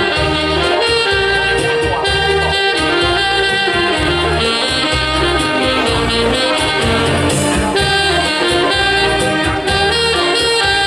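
Ensemble of alto saxophones playing a Hakka folk-song medley melody together, with a steady beat of low bass notes beneath.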